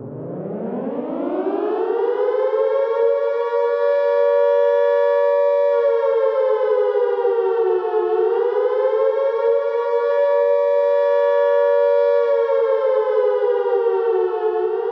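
Air-raid siren winding up from a low pitch over the first two or three seconds to a steady wail of two close tones. It sags in pitch briefly about eight seconds in and again near the end, then rises back.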